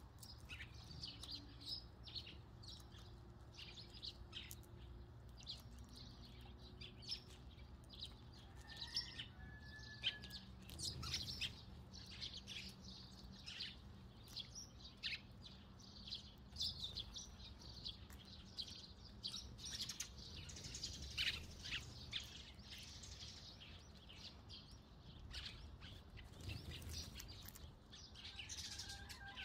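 Eurasian tree sparrows chirping: many short, high chirps come thick and fast and often overlap.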